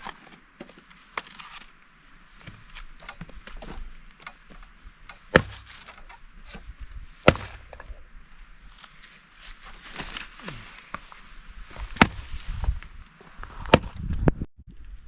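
Wood being chopped into small pieces for kindling: irregular sharp strikes of a blade into wood, four of them loud, with lighter knocks between.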